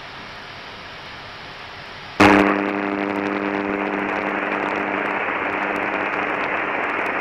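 Cockpit headset audio: a faint steady hiss, then about two seconds in a radio channel opens abruptly into loud, steady static with no words. A low hum fades out of the static after a few seconds.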